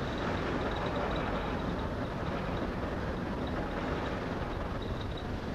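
Steady, even rumble of a passenger ferry's engines running underway.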